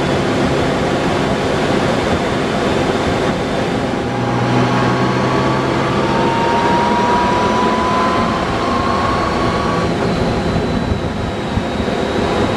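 Honda Gold Wing motorcycle at riding speed: wind rushing over the microphone with the engine running underneath. A thin whine rises slowly in pitch from about four to ten seconds in.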